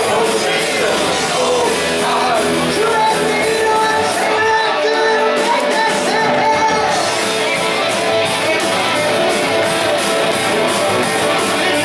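Live rock band playing with electric guitars, a male lead vocal singing over them, heard from the audience in the crowd.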